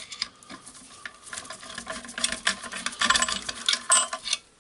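Irregular small clicks, taps and scraping of a screwdriver bit being fitted and worked on a screw in the jigsaw's base.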